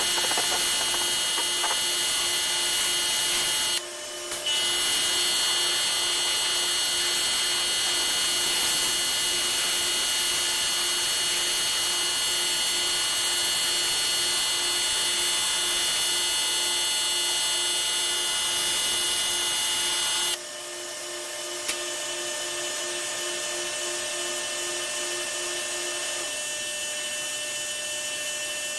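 Pressure washer running and spraying: a steady high-pitched whine over a hiss. It cuts out briefly about four seconds in, then runs on quieter from about twenty seconds in.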